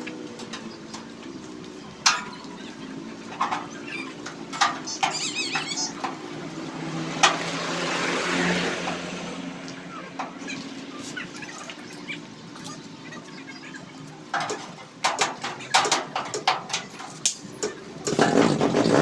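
Scattered sharp metallic taps and clicks from handling and fitting stainless-steel sheet on a tricycle sidecar body, over a low hum. Near the end a louder steady motor sound starts.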